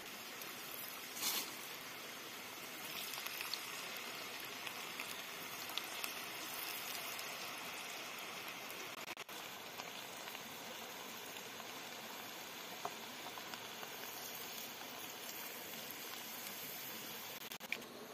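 Potatoes deep-frying in a pan of hot oil: a steady sizzling and bubbling with scattered small pops and crackles, and a short louder burst about a second in.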